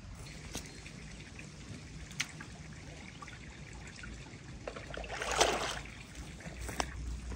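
A black plastic bucket plunged into a pond, water rushing and gurgling into it in one loud burst about five seconds in, then water dribbling and dripping off the full bucket as it is lifted out.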